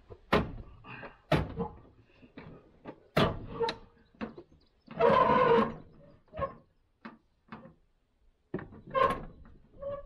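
Scattered sharp knocks and clatters of hard objects being handled, with a louder rasping, pitched scrape or grunt-like sound about five seconds in and again near the end.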